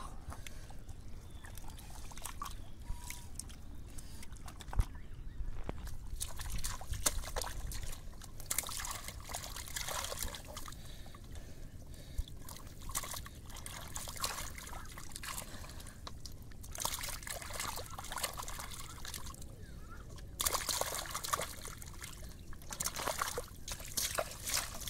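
Shallow muddy water sloshing and trickling as hands grope through mud and water, coming in irregular spells. The sound is quieter for the first third and busier after that.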